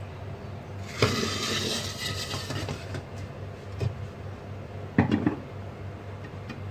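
Kitchen utensils and cookware clattering: a sharp knock about a second in followed by about two seconds of scraping, then more knocks near four and five seconds, over a steady low hum.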